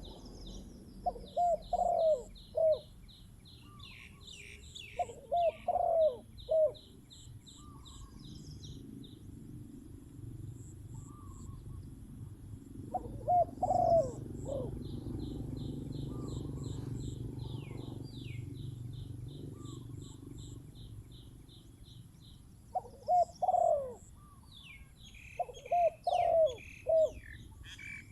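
Spotted doves cooing: short phrases of three to five low coos, five times, answering each other. Between the phrases another small bird chirps quickly in high-pitched runs.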